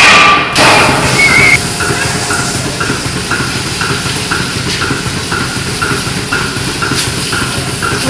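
Milking parlor machinery running: a steady hum from the vacuum system with a regular pulsation clicking about twice a second. A brief loud rush of noise comes right at the start.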